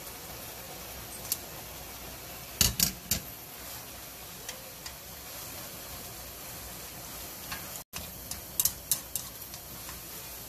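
Black-bean-sauce noodles and small octopus sizzling steadily in a wok while wooden chopsticks stir them, clicking sharply against the pan in two clusters, about three seconds in and again near the end.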